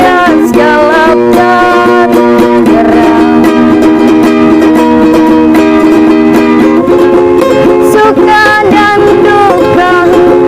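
A young girl singing a slow Indonesian ballad in long held notes, with plucked-string accompaniment.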